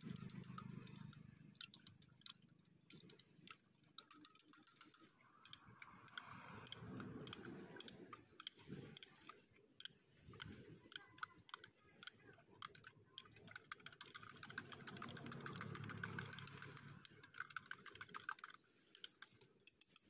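Long metal spoons stirring drinks in glass measuring jugs, clinking against the glass in many quick, uneven ticks. A faint rushing background noise swells and fades twice.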